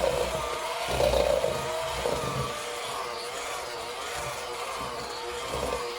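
Electric hand mixer running steadily, its beaters working boiled potatoes, flour and egg into gnocchi dough; the motor's pitch wavers up and down.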